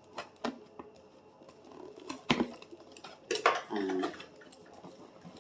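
Scattered clicks and clacks of a plastic toy box and its fastenings being handled and pulled apart while a doll is freed from its packaging, with a brief vocal sound partway through.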